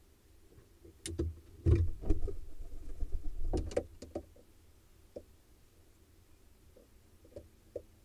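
Barn owl fledgling knocking and scraping on the wooden nest box as it clambers out of the entrance and leaves: a run of thumps and scratches for about three seconds, then a few faint ticks.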